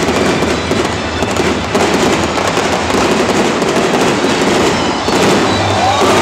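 Fireworks display: a dense, continuous run of crackles and pops from shells and crackling stars bursting overhead.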